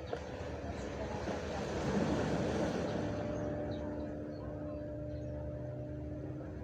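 A wave surging in and washing back along the shore, a rush that swells about a second in, peaks about two seconds in and then eases, over a steady low hum.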